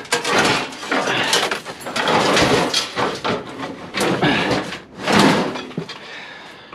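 Junk being shifted and dragged out of a clutter pile: repeated scraping, rustling and knocks of objects against each other and the floor.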